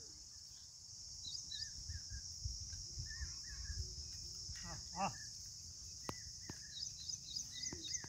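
Steady high-pitched insect chorus with scattered short bird chirps in open farmland, over a low rumble. A brief pitched call rises about five seconds in.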